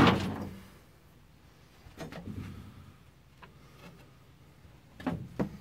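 Steel clanks from a pry bar working a leaf spring pack into position on a bus axle. A loud metal clang rings briefly right at the start, then quieter knocks and scraping, and a few sharp clanks near the end.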